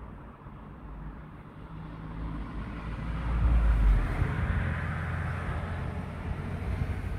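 A road vehicle passes close by, heard through the glass from inside a parked car: a deep engine rumble that builds and is loudest about three to four seconds in, with tyre hiss swelling just after, and traffic noise staying up to the end.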